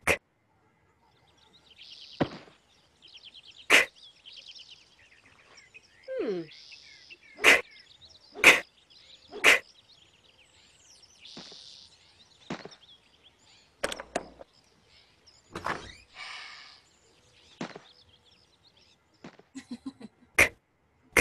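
Cartoon sound effects from a letter-K kangaroo animation: a series of sharp thwacks and thumps, several about a second apart, mixed with whooshing noises and a falling slide in pitch about six seconds in.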